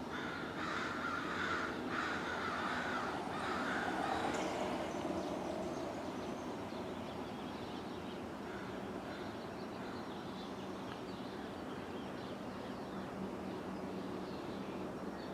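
A crow cawing several times in a row, with the calls dying away after about five seconds, leaving a steady outdoor background hum.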